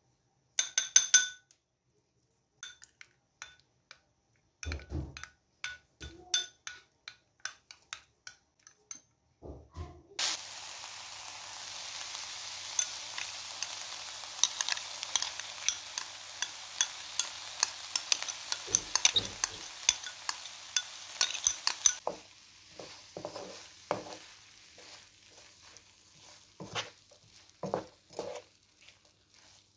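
Food sizzling in a hot frying pan, a steady hiss full of crackles that starts abruptly about a third of the way in and cuts off about two-thirds through. Before it come scattered clinks and knocks of utensils and dishes, and after it quieter clicks.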